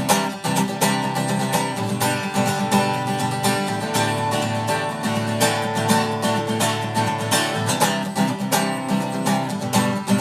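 Instrumental break of a country song: guitars playing over a steady drum beat, with no singing.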